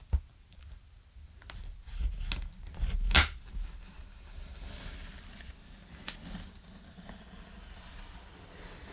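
Packing tape on a cardboard box being cut open with a knife, with cardboard handling: a few short sharp rips and clicks, the loudest about three seconds in, over a low rumble of the box being moved.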